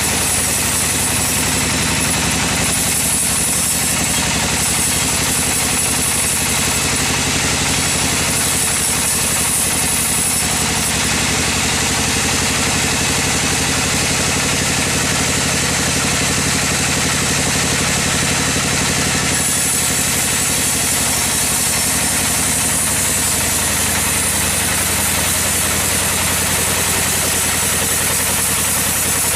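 Sawmill engine running steadily, with a constant hiss above it.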